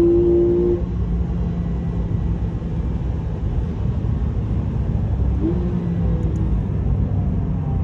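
Porsche 911 GTS engine heard from inside the cabin at speed on track: high revs that drop away about a second in, leaving a low rumble of engine, tyres and road. The engine note rises briefly again about five and a half seconds in.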